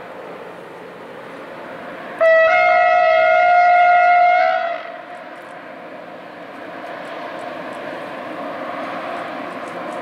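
Freight train's locomotive horn sounding one steady blast of about two and a half seconds, over the train's rumble, which grows louder in the second half as the train draws nearer.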